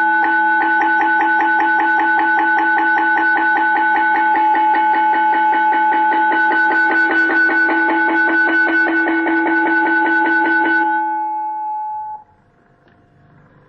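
Automatic school bell system playing its long traditional school-bell sound: an electric bell rung continuously with rapid, evenly spaced strikes over a steady ringing tone. It stops about eleven seconds in and the ringing dies away.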